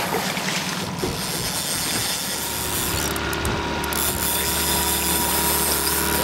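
Fishing reel's ratchet clicking fast and steadily while a hooked chinook salmon pulls against the bent rod.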